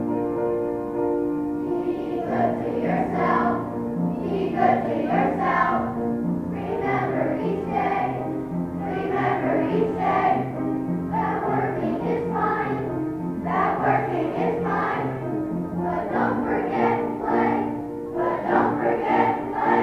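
Children's choir singing a song together, over an instrumental accompaniment with a steady moving bass line.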